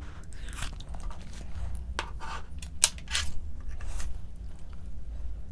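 Short clicks and scrapes of dishes and utensils during a meal, mixed with eating sounds; the sharpest click comes just under three seconds in.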